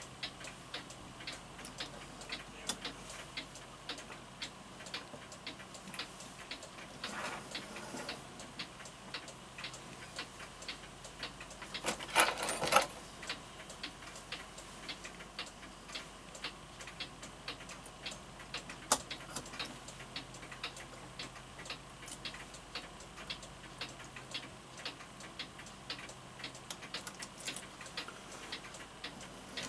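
Florenz Kroeber mantel clock movement ticking steadily, its escapement running after repair. About twelve seconds in comes a brief, louder rustle or clatter of handling.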